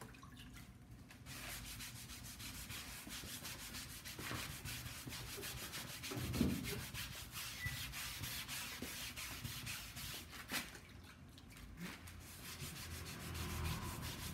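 A wide dyeing brush swept back and forth over a length of cloth stretched taut, its bristles rubbing across the fabric in quick strokes, with a couple of short pauses. A single dull low bump about six seconds in.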